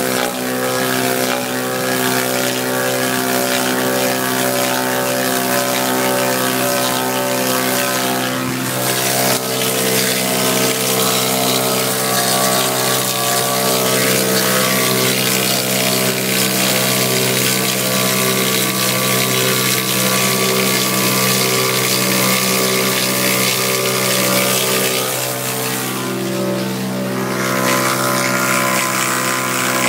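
Log lathe running with its smoothing/notching cutterhead shaving the turning log: a steady machine drone of several held tones under a dense hiss of wood being cut into chips. The hiss eases briefly near the end.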